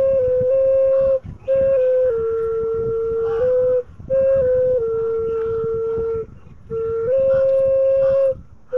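Bansuri, a bamboo transverse flute, played solo: a slow melody of long held notes stepping up and down a little, broken by four short pauses.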